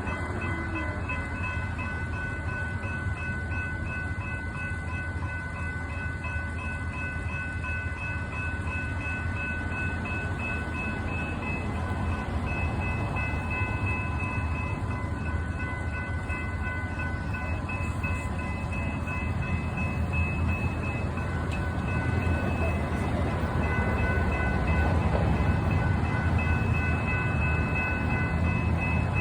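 Train rumbling along the rails, the low rumble growing louder in the last third along with a diesel locomotive's engine hum. Steady high ringing tones run over it, one of them pulsing evenly.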